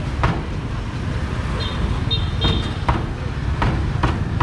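Busy street ambience with a steady traffic rumble and repeated sharp clatters, with two short high beeps, like a vehicle horn toot, near the middle.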